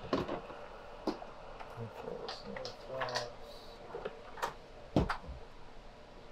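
Hard plastic toy vehicles and parts clicking and knocking as they are handled and sorted in a plastic storage tote: a scattering of sharp clicks, the loudest about five seconds in.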